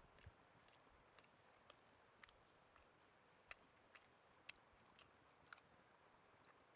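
Faint, scattered sharp clicks, about one or two a second at uneven spacing, over a quiet steady hiss.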